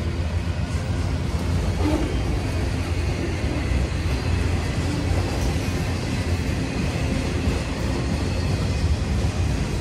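Freight train of autorack cars rolling past: a steady rumble of steel wheels on the rails.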